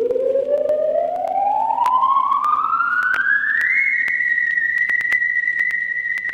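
Electronic sci-fi tone effect from a vinyl sound-effects record: a pure, theremin-like tone glides steadily upward in pitch for about four seconds, then levels off and holds a high steady note. Scattered vinyl surface clicks sound throughout.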